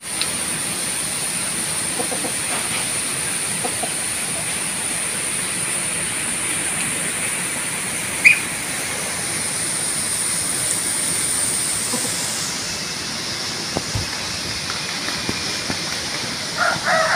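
Steady outdoor hiss with a thin high-pitched whine that drops lower about two-thirds of the way through, and one short sharp call about eight seconds in. Near the end a rooster starts to crow.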